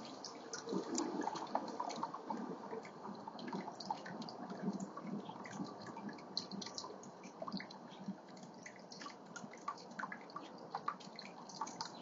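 Small birdbath water fountain running: water bubbling and splashing continuously, with many irregular drips and plinks.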